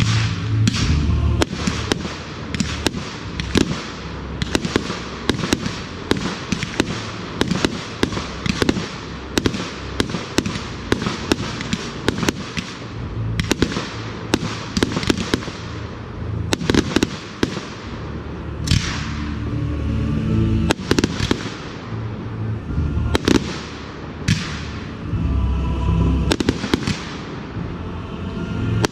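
Fireworks display: a rapid, continuous string of sharp bangs from aerial shells and candles going off, with a few longer hissing bursts in the second half.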